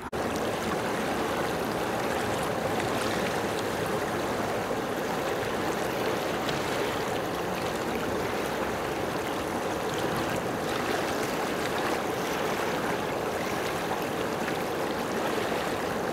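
Steady rush of moving water, an even hiss with no breaks.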